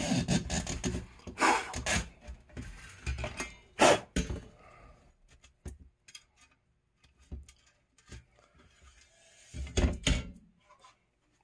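Old fuzzy weather stripping being pulled out of the channel of a screen-window frame: scraping drags and knocks of the frame being handled, then scattered light clicks. About ten seconds in, a louder thunk as the frame is laid down on the vinyl window frame.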